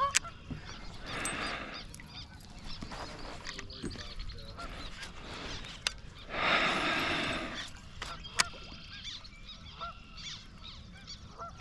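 Faint honking bird calls, repeated, with two stretches of rushing noise: a short one a little over a second in and a louder one lasting about a second and a half, some six seconds in.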